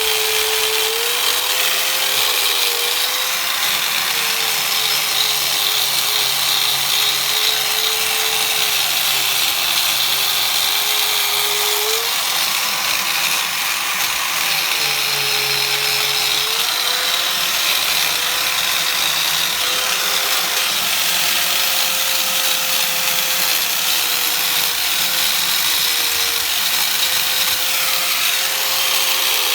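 Angle grinder running continuously while polishing an aluminium engine case, a steady hissing motor whine whose pitch sags lower twice for several seconds and then recovers.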